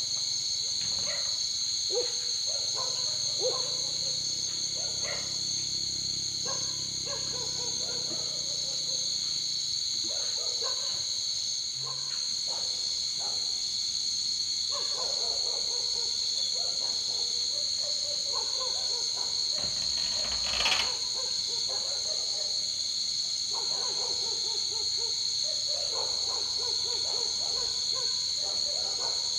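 A steady, high-pitched insect drone with many short animal calls over it throughout. There is a single sharp knock about two-thirds of the way through.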